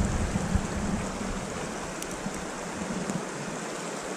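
Shallow river running over rocks: a steady rushing hiss, with some low rumble fading out over the first second.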